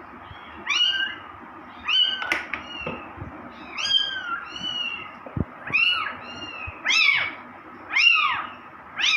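Young kittens mewing over and over, high-pitched arching mews about once a second, some overlapping.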